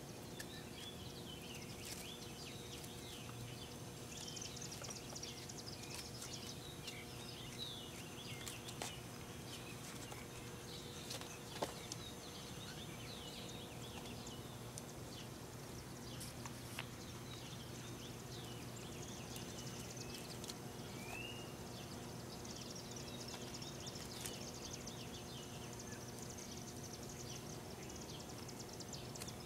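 Outdoor ambience of small birds twittering in many short high chirps throughout, over a steady low hum. A few faint clicks come through, the sharpest about twelve seconds in.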